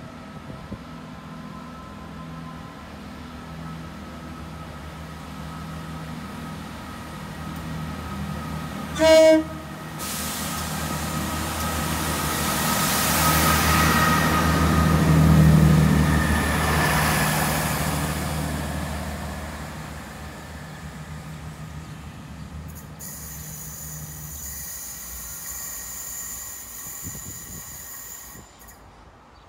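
A GWR Networker Turbo diesel multiple unit running into a platform. Its diesel engines hum steadily, it gives one short horn toot about nine seconds in, and its rolling noise swells as it draws alongside, then fades. A faint high whine comes in near the end.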